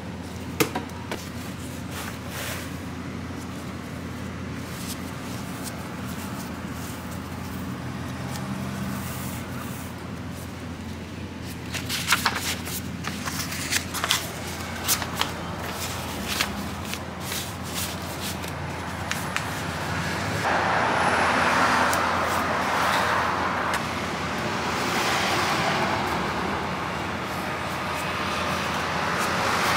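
Kitchen work sounds over a steady low hum: scattered clicks and knocks of utensils and a crepe being handled on a metal tray and steel counter, with a dense cluster of clicks about halfway through. A louder rushing noise that rises and falls comes in for the last third.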